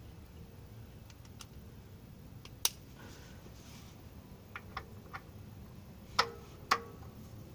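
Scattered metallic clicks and knocks of a 3/8-inch ratchet and extension being fitted to an oil filter housing cap wrench. There is a sharp click about two and a half seconds in, a few small ticks, then two louder clicks near the end that ring briefly.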